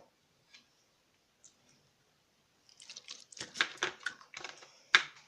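Slime being squeezed and kneaded by hand: after a nearly silent start, a run of irregular small clicks and pops begins about halfway through, the loudest one near the end.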